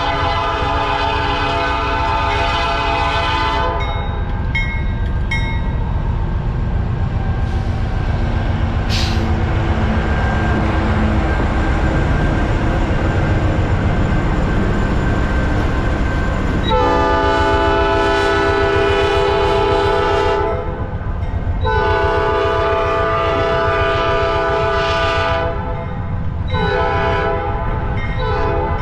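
Norfolk Southern diesel locomotives passing close by with a steady engine and wheel rumble, and a multi-note air horn. The horn's first blast fades out about four seconds in. After a stretch of engine rumble, the horn sounds two long blasts, a short one and the start of another long one near the end: the long-long-short-long grade-crossing signal.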